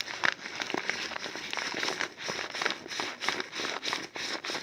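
Crinkling and crackling of the cornstarch packaging as it is handled, a dense run of small irregular crackles.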